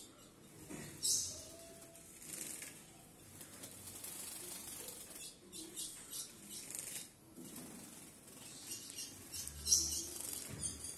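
A young red-cowled cardinal (galo-campina) flapping its wings in a cage, in short flurries of wingbeats, the loudest about a second in and near the end.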